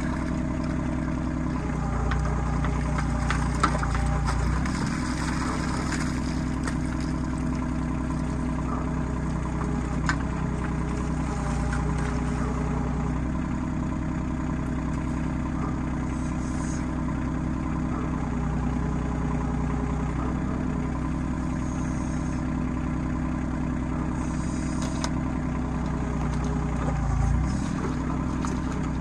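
RK25 compact tractor engine running steadily, its engine speed dipping and rising a couple of times as it works under load, with a few short knocks.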